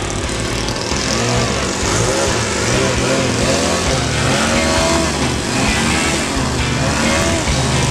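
Radio-controlled model airplane engine running at high revs, its pitch swinging up and down again and again, mixed with rock music.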